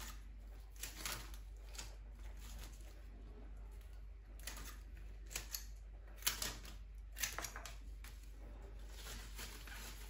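Rose stems and leaves rustling as they are handled, with scattered sharp snips and clicks from flower shears trimming the stems, the loudest a little past the middle.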